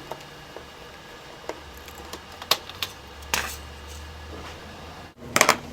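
Scattered light clicks and taps from hands and a tool handling a laptop's plastic case and parts, with a few sharper clicks about halfway through and again near the end.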